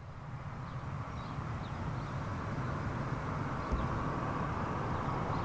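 Airbus A321 airliner on final approach, its jet engines a steady low rumble growing steadily louder as it nears.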